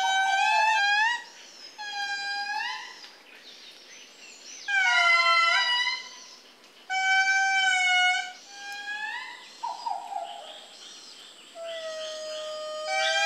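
Indris singing in chorus: several lemurs wail in long, loud notes that hold and then slide downward, overlapping in phrases that come every couple of seconds and die down before swelling again near the end. This is the territorial song by which indri groups proclaim their territory and bonds.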